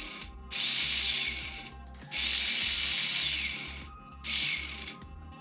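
Airsoft AEG electric motor spinning the freshly shimmed gearbox gear set, run three times in short bursts that each cut in suddenly and wind down. It runs smoothly, with no motor whine or gear whine, a sign of good shimming and motor height.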